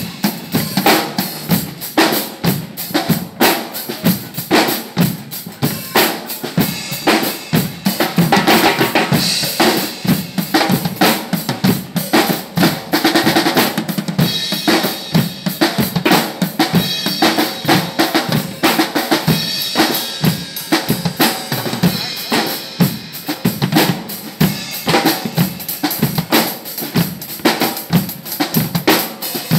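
Several acoustic drum kits played together in a continuous funk-rock groove, with bass drum, snare and cymbals going without a break.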